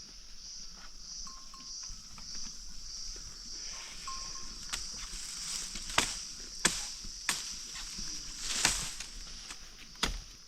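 A steady high insect drone, with a handful of sharp, irregular knocks or chops over it in the second half.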